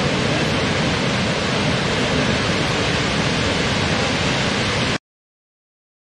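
Large waterfall, a heavy volume of water falling in a steady, dense rushing noise that cuts off suddenly about five seconds in.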